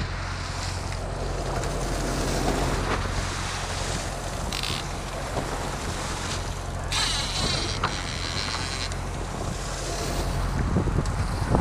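A boat's engine running steadily under wind noise on the microphone and the wash of water, with a short burst of hiss about halfway through and a longer one a couple of seconds later.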